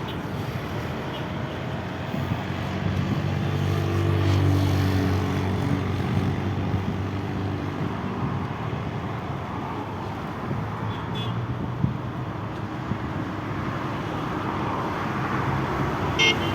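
Road traffic noise, with a vehicle engine passing louder about three to six seconds in.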